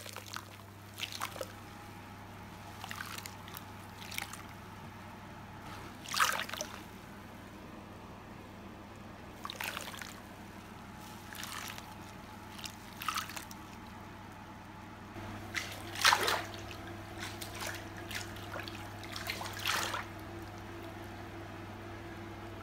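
Bath water splashing and sloshing as a hand moves through a filled tub, in separate splashes every second or two, the loudest about six and sixteen seconds in, over a steady low hum.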